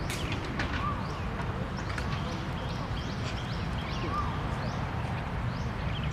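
Small birds chirping in short, high, repeated calls over a steady low rumble.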